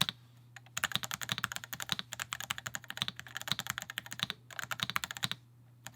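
Typing on a Melgeek Pixel mechanical keyboard: a rapid run of keystroke clacks, with a brief pause near the start and another near the end.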